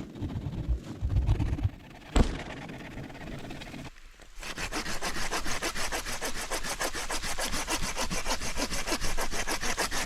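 Hand saw cutting through a small tree trunk in quick, even strokes, starting about four seconds in. Before it come some low thumps and one sharp knock about two seconds in.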